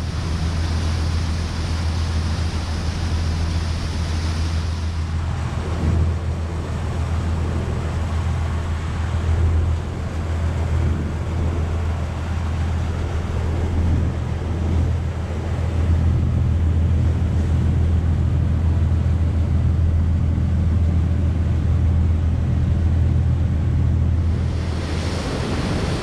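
A cruise boat's engine droning steadily underway, a deep even hum, with wind buffeting the microphone and water rushing past the hull.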